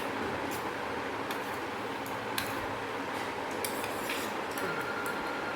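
Light metallic clicks and clinks of tools and metal parts being handled as a ceiling fan is taken apart, about seven scattered through, over a steady background hiss.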